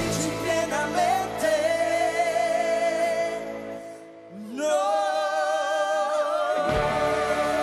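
Pop ballad duet sung live by a woman and a man over band backing, in long held notes with vibrato. About halfway through, the backing drops away and it goes briefly quieter. Then a new held note rises in and the full band swells back near the end.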